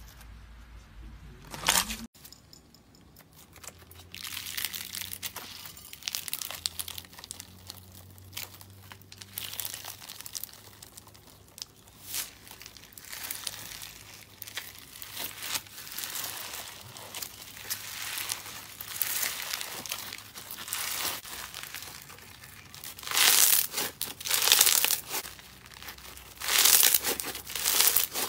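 Green foam-bead slime (floam) being stretched and squeezed by hand, crackling and crinkling as the beads rub and pop, with several louder squeezes near the end. It opens with a brief squish of clear slime being pressed.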